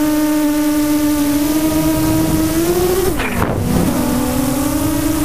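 Electric motor and propeller of an FPV radio-controlled aircraft whining steadily, heard from the onboard camera. About three seconds in the pitch rises slightly, then drops sharply with a rush of air as the throttle is cut, and climbs back to a steady whine.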